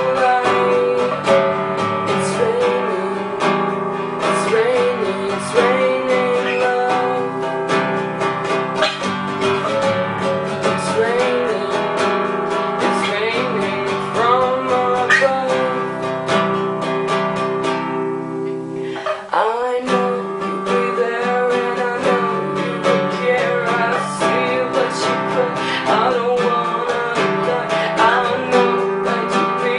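Acoustic guitar music, strummed steadily, with a short break and a falling sweep about two-thirds of the way through before the playing carries on.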